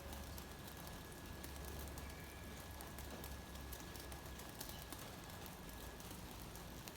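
Rain falling, a steady patter of drops over a low rumble, with a thin steady high tone that stops about six seconds in.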